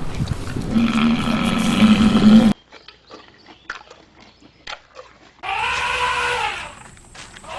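Animal calls: a loud, harsh growling call that stops abruptly, then a few faint clicks, then a second call whose pitch rises and falls.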